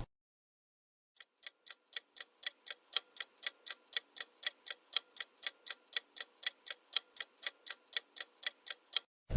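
Clock-style countdown timer ticking evenly, about four ticks a second, growing gradually louder.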